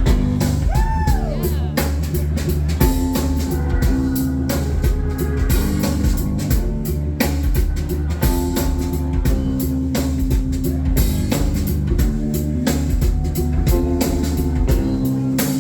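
Instrumental opening of an alternative-rock song: a busy drum-kit beat over a repeating bass line, with guitar. A short swooping tone rises and falls about a second in.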